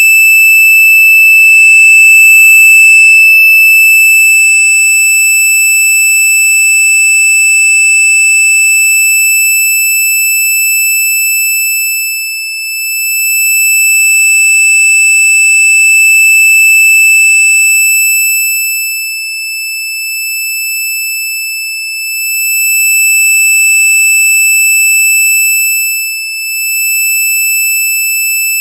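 A loud, steady, high-pitched electronic tone held without a break, with a few fainter lower tones that fade in and out beneath it; the overall loudness dips briefly a few times.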